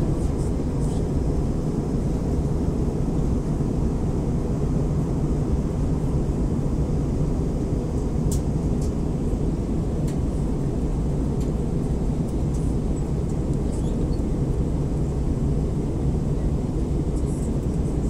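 Airliner cabin noise in flight: a steady low roar of engines and airflow, with a few faint clicks.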